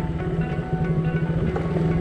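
Background music playing over a motorcycle engine running steadily underneath.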